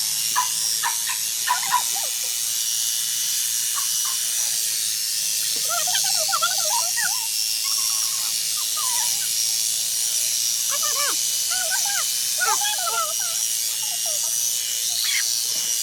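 Electric sheep-shearing clippers running steadily, with a continuous hum and hiss, while a sheep is being sheared. Short wavering calls come over the clipper noise about five seconds in and again near the two-thirds mark.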